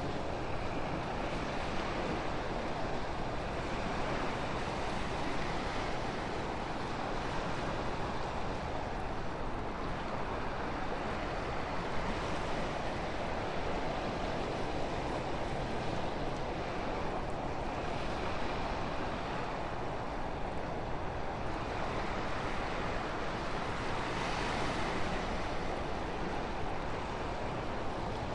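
Wind blowing steadily, gusting up and easing off every few seconds.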